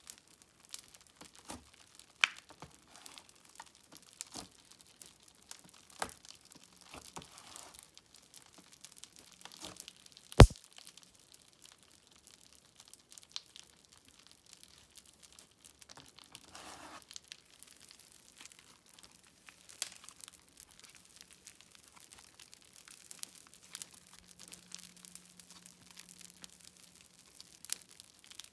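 Slime being squished and stretched by hand, giving irregular crackles, small pops and clicks, with one sharp, loud click about ten seconds in.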